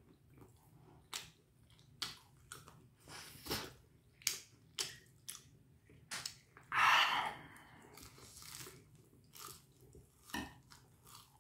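Close-up chewing of a rice-batter hot dog: a run of short, crisp clicks and crunches from the fried coating as it is chewed. A longer, louder breathy rush comes about seven seconds in.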